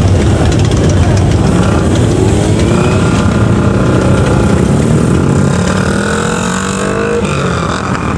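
Several motorcycle engines running together in a queue, with bikes pulling away one after another and their engine notes rising and falling as they accelerate past.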